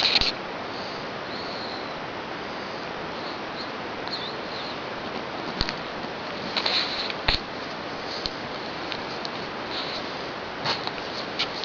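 A sleeping pet snoring, with short, high whistling snuffles through the nose, bunched around the middle and again near the end, over a steady hiss. Two sharp clicks come in the middle.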